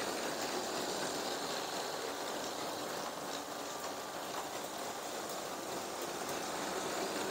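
Two battery-powered Lego trains, including the Lego City Passenger Train 60337, running steadily on plastic Lego track: the small motors whining with the wheels rolling over the rails.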